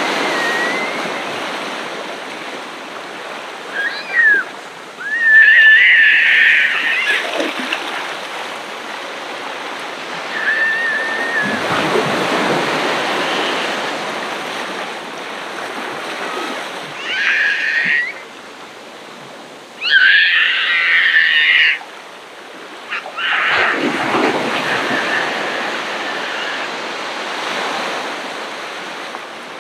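Ocean waves breaking and washing up the beach, swelling and fading, with two bigger surges. Over them, loud high-pitched calls ring out in clusters a few seconds long, three times.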